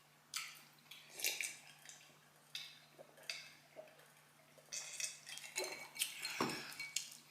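Eating sounds at a table: scattered light clinks and scrapes of cutlery and dishes, a second or so apart, with a sharper knock near the end.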